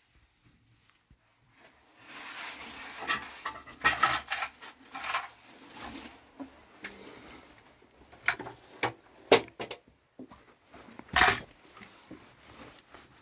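Knocks and clatters of pots and utensils being handled, with a rustling scrape between about two and six seconds in; the sharpest knocks come about nine and eleven seconds in.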